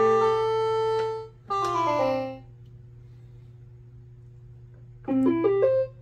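VTech Little Smart Super Sound Works toy keyboard in split mode, two instrument voices sounding at once through external powered speakers: held chords, then a rolled chord about a second and a half in that dies away. After a pause with only a low steady hum, a quick rising run of notes near the end.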